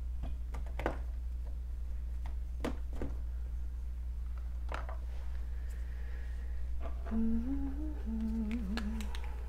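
A person humming a short, wandering tune to themselves for about two seconds near the end, over a steady low background hum. A few light taps come earlier.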